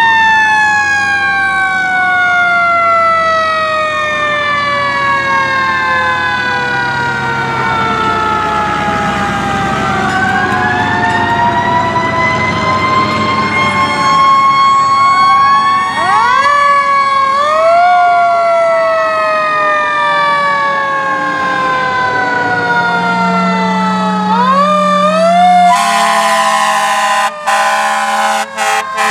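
Several fire-engine sirens wailing over one another. Each winds up quickly to a high pitch and then slowly coasts down over many seconds, and new wind-ups start every few seconds. Near the end the sound changes abruptly to a steadier mix of held tones.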